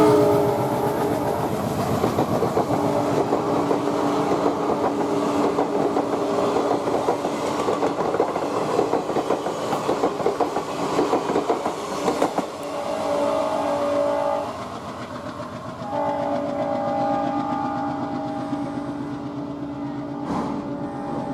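Indian Railways passenger train running past on the track, its wheels clattering rapidly over the rail joints for about twelve seconds before the clatter fades. Steady sustained tones continue through the second half.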